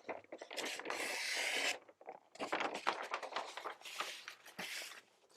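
Metal hand-plane parts being handled and set into containers: irregular clicks, clinks and scrapes, with a short steady rush about a second in.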